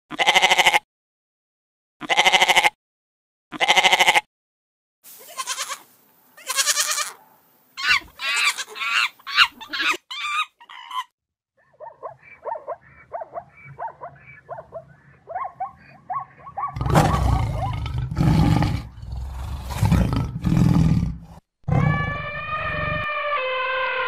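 A string of animal call sound effects. It opens with three goat bleats about two seconds apart. Varied animal calls follow: a rapid quieter chatter in the middle, loud deep calls, and near the end a long call that holds its pitch and then slides down.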